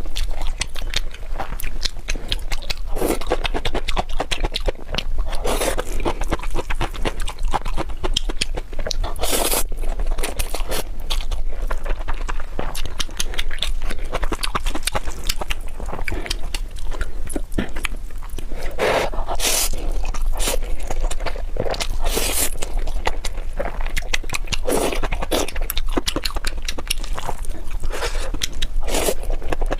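Close-up mukbang eating sounds: chewing and biting with frequent sharp clicks and crunches, and scraping now and then.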